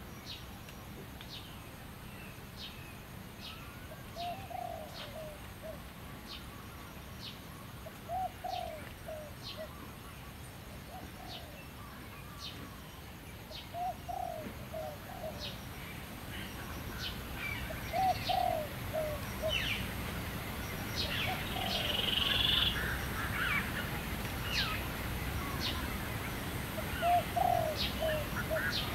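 Doves cooing in short low phrases of a few notes, repeated every few seconds, while a short high call ticks about once a second. Other birds chirp more busily in the second half.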